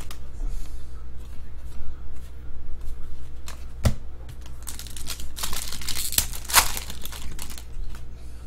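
Foil trading-card pack wrapper torn open and crinkled, with a dense run of loud rustling from about five to nearly eight seconds in, after a single sharp tap just before four seconds.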